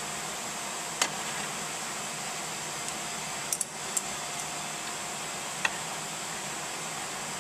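A few sharp metallic clicks and taps as steel suspension parts and the new CV axle's splined end are handled and fitted at the front hub, one about a second in, a quick pair halfway through and two more after, over a steady hiss.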